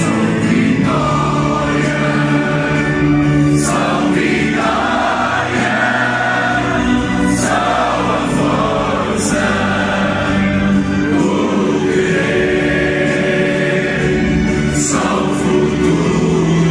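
A stadium crowd of football supporters singing together in unison, a slow chant of long held notes.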